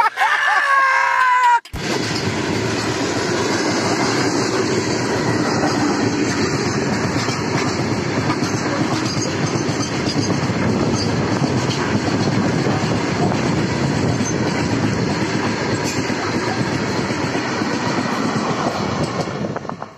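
Freight train of open-top box wagons passing close by, its wheels running on the rails in a loud, steady noise that starts suddenly just under two seconds in and stops shortly before the end.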